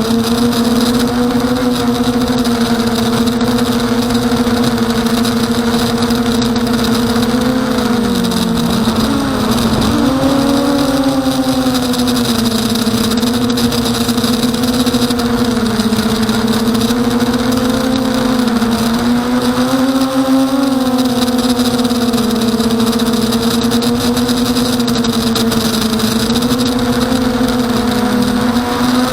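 Brushless motors and propellers of an Emax Nighthawk 250 FPV racing quadcopter buzzing steadily at one pitch, the pitch dipping about eight seconds in and climbing back a second or two later.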